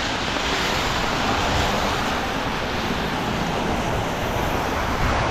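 Steady hiss of rain and car tyres on a wet road, heard from under an umbrella.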